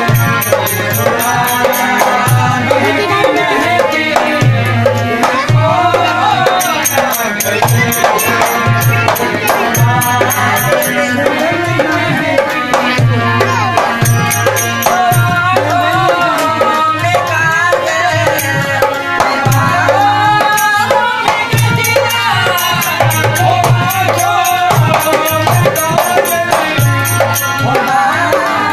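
Live Indian folk music: a dholak hand drum beats a steady, even rhythm under a harmonium and a wavering sung melody, with a high rhythmic jingling on top.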